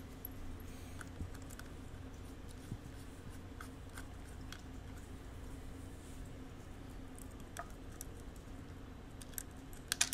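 Faint, scattered clicks and taps of small parts and electronics being handled, over a steady low hum; a quick cluster of clicks near the end as hands work at the circuit board and ribbon cable.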